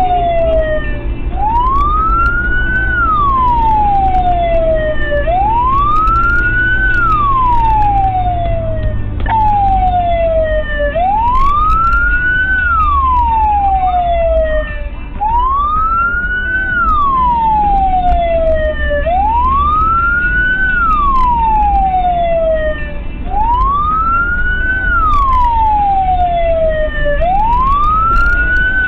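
Emergency vehicle siren on a slow wail. Its pitch climbs quickly, then slides down more slowly, once about every four seconds, over a steady low engine and road rumble.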